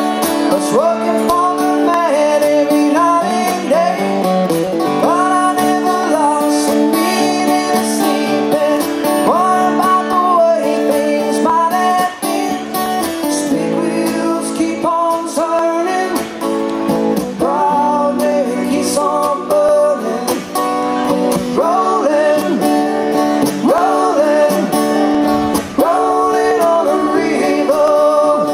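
Live acoustic duo: a man singing a melody over two strummed acoustic guitars.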